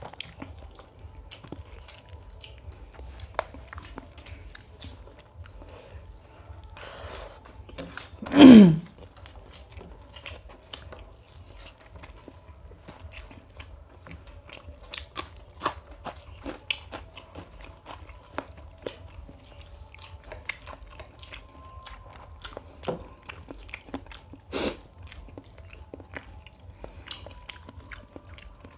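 Close-miked chewing and mouth noises of people eating mutton biryani by hand: many small wet smacks and clicks. About eight and a half seconds in comes one short, loud throat sound that drops in pitch.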